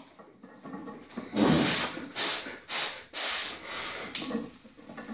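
A powerlifter breathing hard under a heavy barbell during a reverse band squat set: about five sharp, noisy breaths in quick succession, roughly one every half second, starting about a second and a half in.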